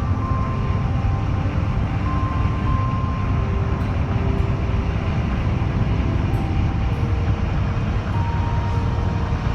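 Steady low rumble of a vehicle under way, with a faint slow melody of held notes over it.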